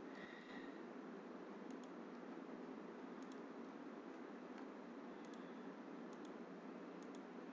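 Faint computer mouse clicks, each a quick double tick of press and release, about five times over the few seconds, against a steady low hiss.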